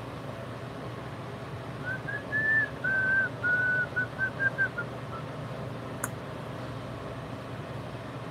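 A person whistling a short tune of about a dozen quick notes, rising and falling, over a steady low mechanical hum. A single sharp click comes about a second after the tune ends.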